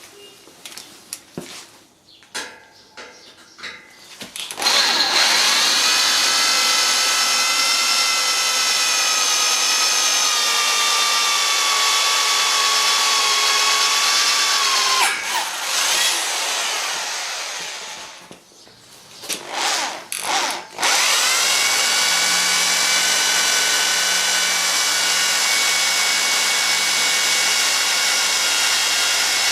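Handheld electric drill drilling into metal. A few clicks and knocks come first, then the motor whine runs for about ten seconds, its pitch slowly sinking as the bit bites. It stops, gives a few short bursts, then runs steadily again.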